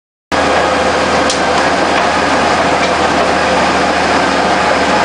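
Caterpillar 977K track loader driving on pavement: its diesel engine running steadily under load, with the steel tracks clattering, starting abruptly about a third of a second in.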